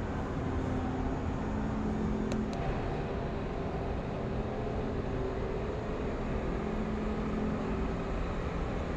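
Steady ventilation hum and low rumble of a large indoor exhibition hall, with a faint steady drone and a couple of light ticks about two seconds in.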